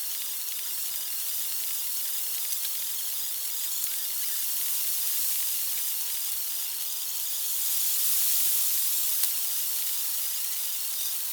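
Steady high-pitched hiss of a night insect chorus, with a few faint clicks.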